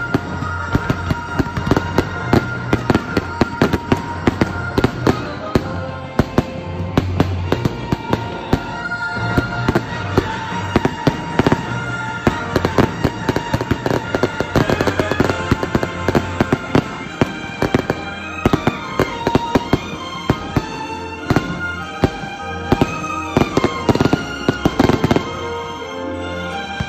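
Fireworks display: firework shells bursting in quick succession, many sharp bangs with a dense volley near the end, over music playing.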